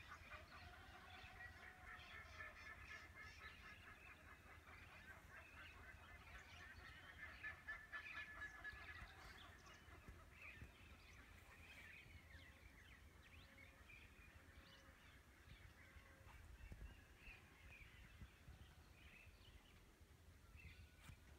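Faint chorus of birds calling, many short repeated calls in rapid runs, densest in the first half and thinning out later, over a low rumble.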